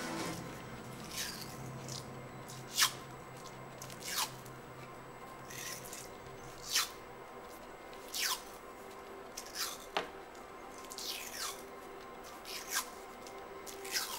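Electrical tape being pulled off the roll as it is wound round a bandy stick's handle: about a dozen short rasping rips, each falling in pitch, one every second or so.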